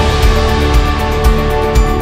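Background music with a steady beat, about two drum hits a second, under held chords.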